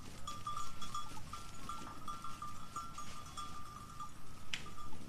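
Sheep bells clinking irregularly at one pitch as the flock grazes and moves. A single sharp click sounds about four and a half seconds in.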